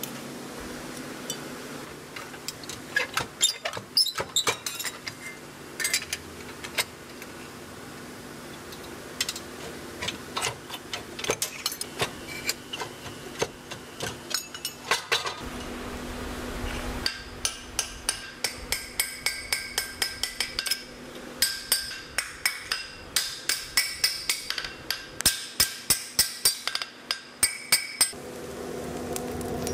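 Hand hammer striking a steel kitchen-knife blank on an anvil. Scattered blows come first, then, past halfway, a steady run of about three ringing strikes a second.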